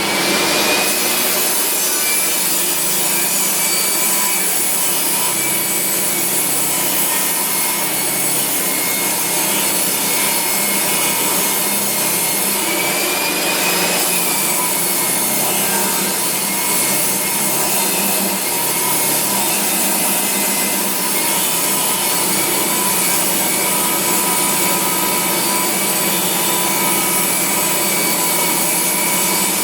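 Makita 2704N table saw ripping a length of old hardwood along the grain, the blade running under steady load. Its whine dips briefly in pitch a few times as the wood is fed through.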